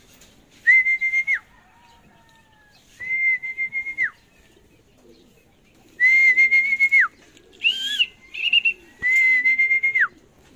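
A person whistling four times, each a steady high note of about a second that drops in pitch at the end, with a few short rising chirps between the third and fourth: a pigeon fancier calling a returning racing pigeon down to the loft.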